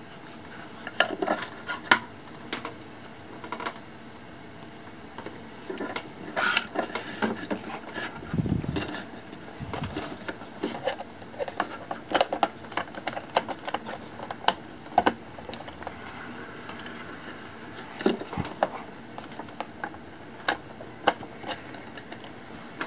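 Cables being handled and plugged into the back of a computer monitor: irregular small clicks, taps and rustles of plastic plugs and cable knocking against the plastic stand and its cable holder, with one low thud about eight seconds in.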